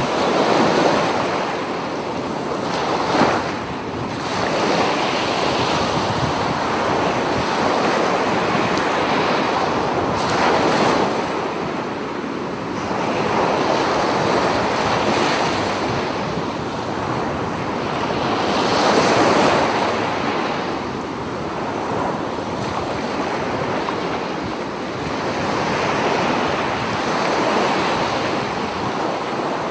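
Ocean surf: waves breaking and washing up a beach, the rush of water swelling and easing every few seconds.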